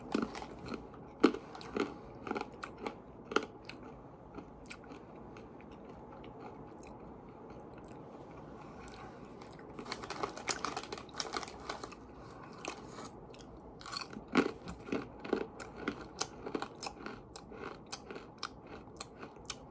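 Close-up crunchy chewing of dried banana chips. A few sharp crunches at the start, a quiet spell, then steady crunching from about halfway on.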